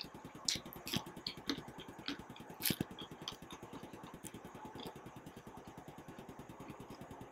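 A person chewing a spicy dumpling: scattered soft mouth clicks and smacks, the sharpest about two and a half seconds in.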